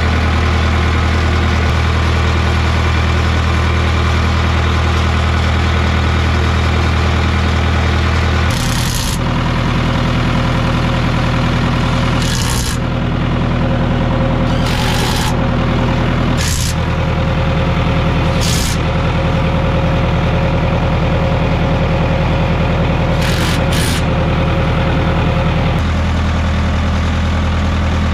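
Caterpillar 3304 four-cylinder diesel of a D3C bulldozer idling steadily, running on a freshly replaced water pump. Between about 9 and 24 seconds in, several short buzzing bursts, some in quick pairs, come from a cordless impact driver on the grille panel's bolts.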